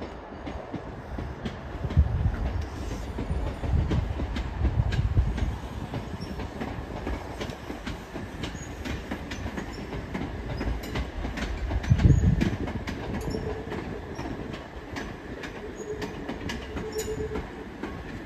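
Southeastern electric passenger train moving through the station, with heavy low rumbles and a run of sharp wheel clicks over the rail joints; a faint steady whine comes in during the second half.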